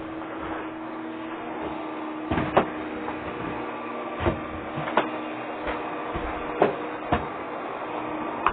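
Vacuum cleaner running with a steady hum, with about six sharp knocks or clicks over it.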